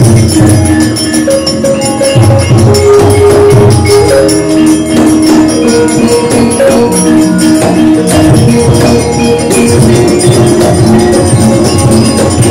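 Gamelan accompaniment playing: held ringing metallophone notes over a steady stream of sharp percussive strikes.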